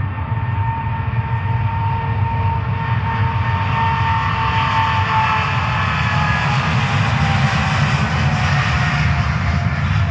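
Twin-engine widebody jet airliner at takeoff thrust on its takeoff roll: loud, steady jet-engine noise with a deep rumble and a whine that slowly drops in pitch as the aircraft moves along the runway.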